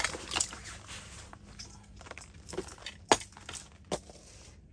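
A small plastic winter fishing rod being picked up from the floor beside an ice hole: a few sharp clicks and knocks amid light rustling. The sharpest click comes about three seconds in.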